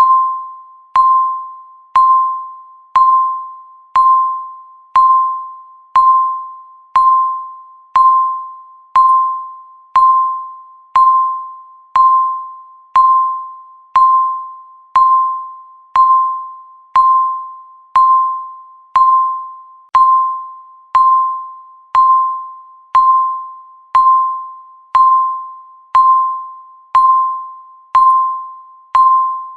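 Countdown timer's tick sound: the same short, clear ding once every second, each struck sharply and fading away within about half a second.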